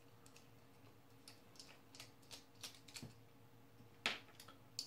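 Faint, irregular clicking and ticking of a precision screwdriver's Phillips bit turning screws out of a circuit board holder's leg, with one sharper click about four seconds in.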